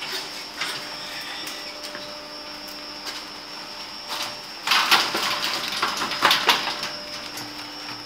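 Passenger lift car with a steady hum, then its stainless-steel doors sliding with a loud rattling rush from about five to six and a half seconds in, after a call button is pressed.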